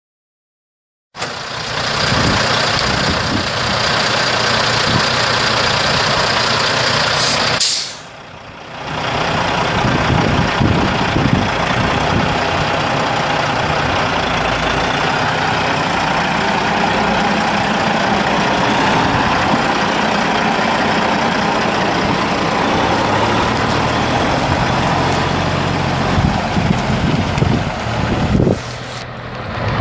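Caterpillar C15 twin-turbo diesel engine of a Kenworth T800B semi truck idling steadily, starting about a second in, with a short break in the sound about eight seconds in.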